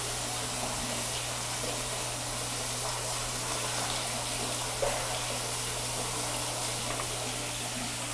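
Treated effluent gushing steadily out of the sample port on an aerobic treatment unit's filter outlet, with the pump forced on to flush debris from the line. A steady low hum runs beneath, and there is a small knock about five seconds in.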